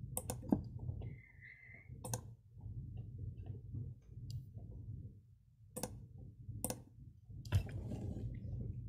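Computer mouse clicks: about six sharp, single clicks at irregular intervals, two close together at the start, over a low steady background hum.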